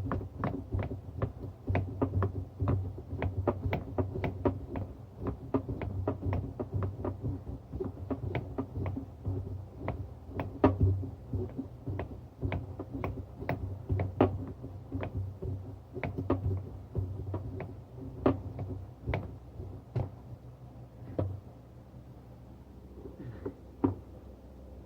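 Irregular sharp clicks and knocks, two or three a second, from hand tools at work on the engine bay fittings of a Dodge Ram 4.7, over a steady low hum. The clicks thin out and stop near the end.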